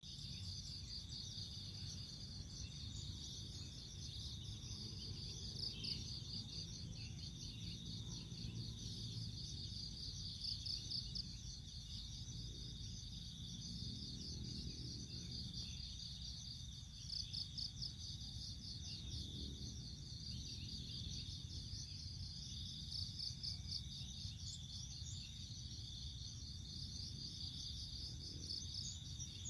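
Steady, high-pitched chirring of insects, pulsing rapidly, over a low hum that swells briefly now and then.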